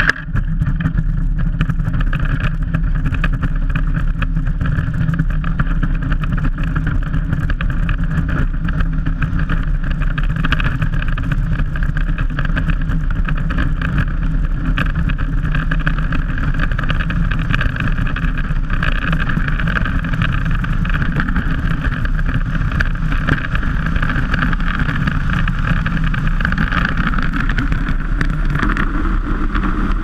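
Steady, loud noise of a bobsleigh running down an ice track at speed: steel runners on the ice and air rushing past the sled. The hiss grows stronger near the end as the sled swings into a steep banked curve.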